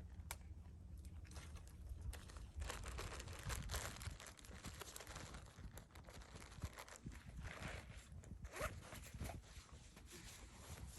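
Footsteps crunching on an icy, snowy trail, faint and uneven, from boots fitted with Yaktrax ice cleats.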